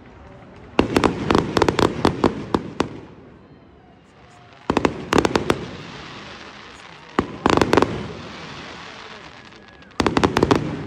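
Fireworks display: aerial shells bursting in four quick volleys of sharp bangs, about a second in, around five seconds, around seven and a half seconds and near the end. A crackling fizz of the gold stars carries on between the volleys.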